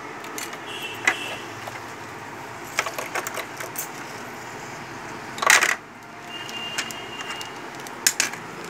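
Metal clicks and light clatter of a sewing machine's half-round shuttle hook assembly and its steel race ring being handled, with one louder scrape about halfway through and a couple of sharp clicks near the end as the ring is picked up.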